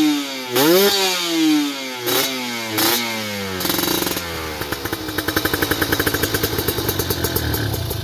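Kawasaki Ninja 150 RR single-cylinder two-stroke engine, breathing through an Arrow silencer on an RS1 expansion chamber with a PWK 28 carburettor and open air filter, blipped three times, with one long rev and two short ones, each rising and falling in pitch. About three and a half seconds in it drops back to an uneven idle.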